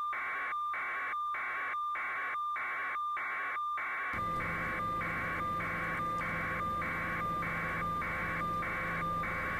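Pulsing electronic signal: even bursts of hiss with a steady tone running through them, about three pulses every two seconds. A low steady hum joins about four seconds in.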